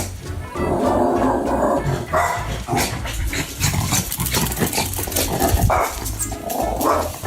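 A dog barking in short, irregular bursts, over background music.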